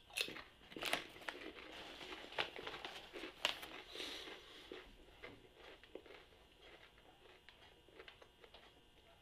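Lay's potato chips crunching as they are chewed, with a few sharp crunches in the first few seconds, and the chip bag crinkling as a hand reaches in; the sound fades to faint scattered crackles in the second half.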